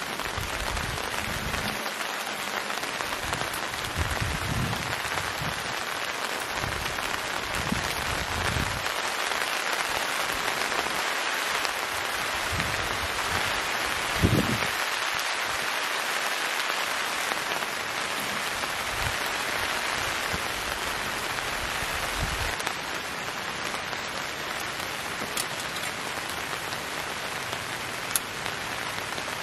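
Heavy rain falling steadily, a dense even hiss, with irregular low thuds now and then, the loudest about halfway through, and one sharp click near the end.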